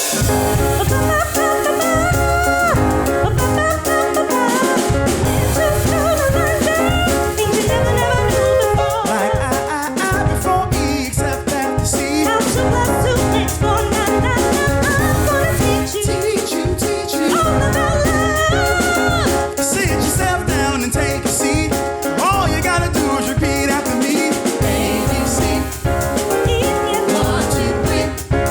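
A vocal ensemble singing a song with band accompaniment, a drum kit among the instruments.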